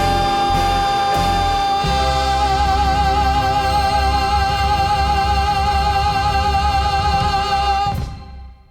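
Music: a band holds its final chord, with one long high note that gains a growing vibrato over bass and drums. It stops sharply about eight seconds in and dies away.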